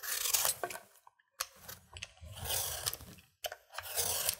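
Vegetable peeler scraping the skin off a butternut squash: a few rasping strokes in a row, each about half a second to a second long.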